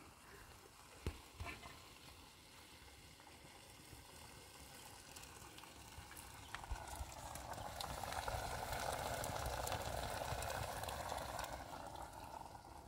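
Water poured from a kettle into a pot of simmering tomato stew: a steady pouring splash that builds from about six and a half seconds in, is loudest in the middle and fades near the end. Two light knocks come about a second in.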